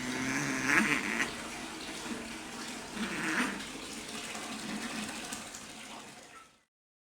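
Tomcats in a fighting standoff: a low, drawn-out, wavering yowl, then sharp hisses about a second in and again around three seconds in. The sound cuts off abruptly near the end.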